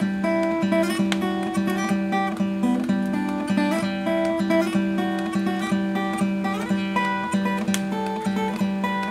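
Solo acoustic guitar, fingerpicked: a steady, evenly repeated low bass note, about two plucks a second, under a slow melody of ringing higher notes.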